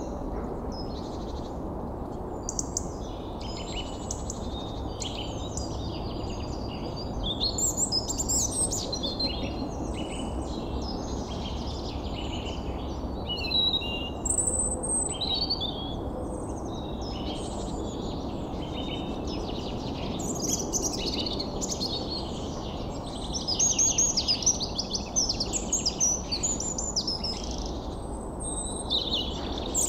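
Several birds chirping and trilling in quick, overlapping calls, busier at times, over a steady low rushing background.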